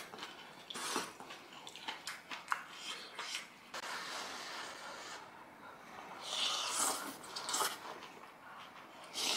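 Eating sounds over a bowl of hot porridge with noodles: scattered light clicks of a spoon and short hissy slurps, with a louder stretch of slurping about six to eight seconds in.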